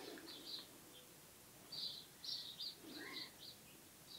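Faint bird chirping: repeated clusters of short, high chirps.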